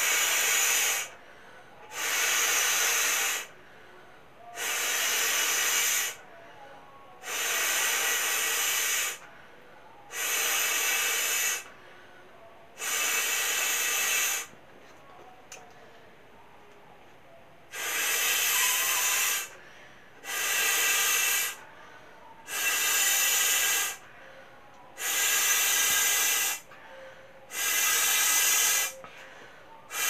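A person blowing up an inflatable beach ball by mouth, breath rushing through its valve in about eleven long puffs of a second and a half or so each. Short gaps fall between the puffs, with one longer pause about halfway through.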